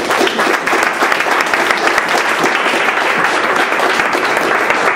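Audience applauding steadily at the end of a talk: many hands clapping together in a dense, even patter.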